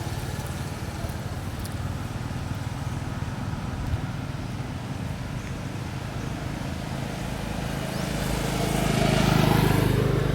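Steady background hum, with a motor vehicle passing: it grows louder toward the end, peaks about nine and a half seconds in, then starts to fade.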